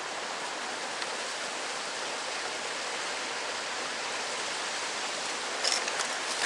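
Steady rushing noise, with a few sharp clicks and knocks near the end.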